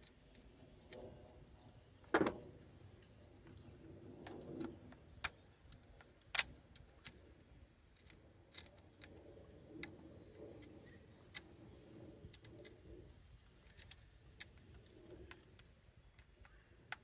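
Scattered sharp metal taps and clinks of a screwdriver being banged against the mixture-screw caps of a Rochester Quadrajet carburetor, trying to knock the caps out. The two loudest strikes come about two seconds and six seconds in, with lighter taps between.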